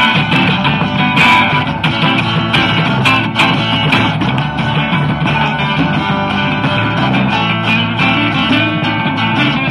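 A live acoustic rock band playing an instrumental passage with no singing: strummed acoustic guitars, an electric guitar, and a djembe hand drum keeping a steady beat.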